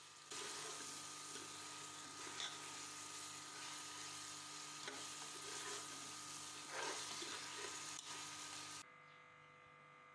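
Mutton pieces frying and sizzling in oil and spices in a metal pot, stirred with a metal ladle that scrapes the pot a few times, loudest about two and a half and seven seconds in. The sizzle stops abruptly near the end.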